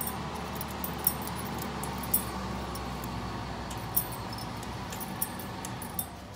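Metal key blanks clinking against each other and the wire display hooks as they are hung on a rack: a sharp click about once a second over a steady rushing noise that fades near the end.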